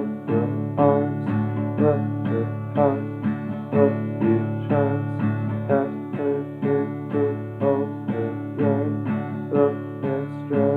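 Fender DG-8 acoustic guitar with a solid spruce top, played solo and instrumental: a steady run of picked notes, about three a second, over low bass notes left ringing.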